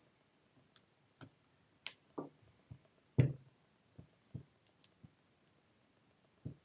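Small parts of a power drill being handled: the cable clamp and its screws against the plastic housing, giving scattered light clicks and knocks, the loudest about three seconds in.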